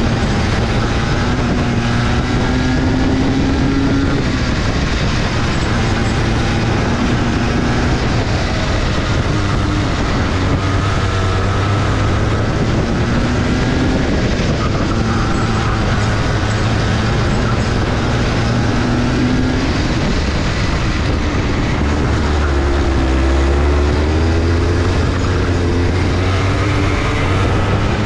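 Go-kart engine running flat out in a race, its pitch repeatedly climbing and dropping every few seconds as it accelerates and backs off, over a constant loud rushing noise.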